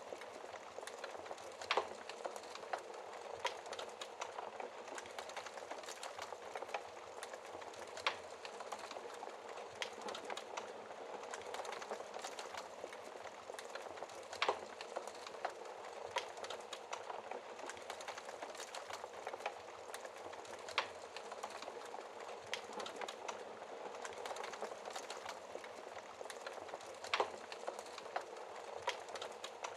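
Fireplace fire crackling: a steady soft hiss with irregular sharp pops, a handful of them louder and several seconds apart.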